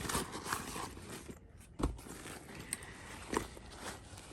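Light handling noises, soft clicks and scrapes, with two sharper knocks about two and three and a half seconds in.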